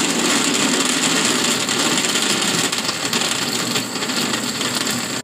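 Electric countertop blender running at full speed, blending strawberries with milk into a milkshake, then switched off suddenly near the end.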